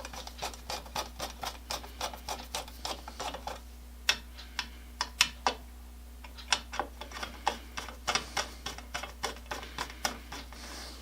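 Sharp metallic clicks of hand-tool work on a chainsaw, coming in uneven runs of several a second, with a few louder single clicks about four to five seconds in, over a steady low workshop hum.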